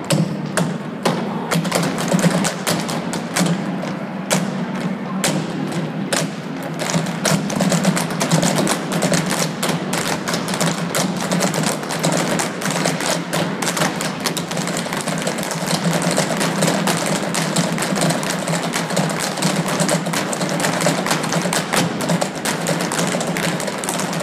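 Irish dancers' hard shoes striking the stage floor together, a fast, steady run of heel and toe clicks and stamps danced with no music.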